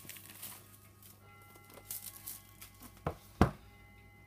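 Cardboard phone box set down on a stone countertop: two knocks close together about three seconds in, after light handling rustle. Faint background music of sustained notes runs underneath.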